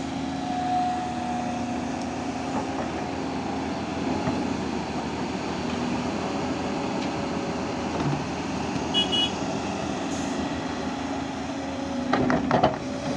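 Engine of a Volvo construction machine running steadily, with a few loud knocks about twelve seconds in.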